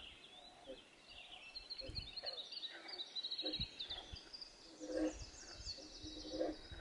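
Faint songbirds singing, with short high chirps and rapid trills overlapping throughout, and a few soft low thumps.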